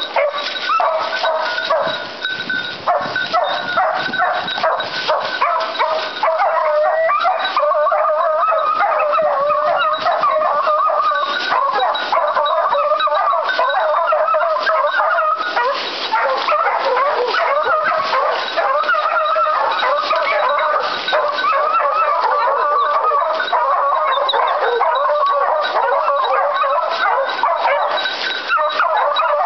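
A pack of scent hounds baying without pause, many voices overlapping, at a wild boar they are holding at bay.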